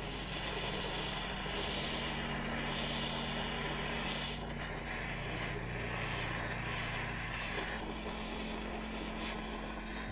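Handheld butane torch flame hissing steadily as it heats a solder joint on silver, the hiss swelling and easing as the flame is moved. Soft background music with sustained low notes runs underneath.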